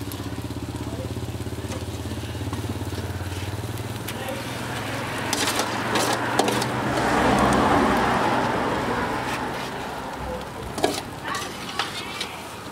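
A small engine runs steadily for the first few seconds, then fades under a hiss that swells and dies away in the middle. Scattered clicks and knocks come from meat being handled on a charcoal grill.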